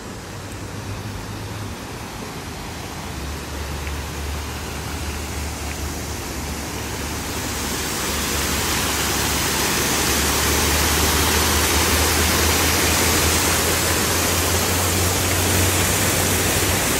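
Water rushing through and over a canal lock gate and splashing into the lock chamber below. A steady rush that grows louder over the first several seconds, then holds.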